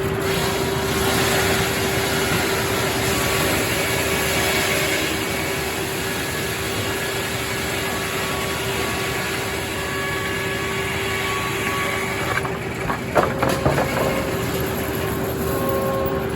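Circular sawmill running with a steady tone over a mechanical din, and a short cluster of knocks about thirteen seconds in.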